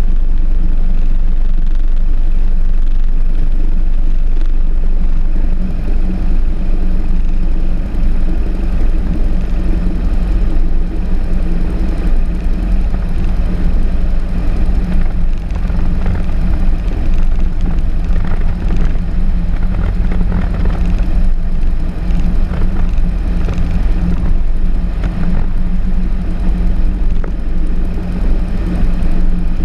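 Single-engine Cessna's piston engine and propeller running at low taxi power, a steady low drone, with a rougher, fluttering edge from about six seconds in.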